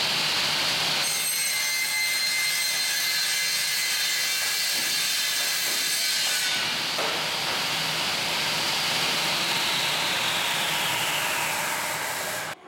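Elcon vertical panel saw with its circular blade running and cutting through a wooden board, a loud, steady whine. Near the end the pitch falls as the blade runs down, and the sound stops just before the end.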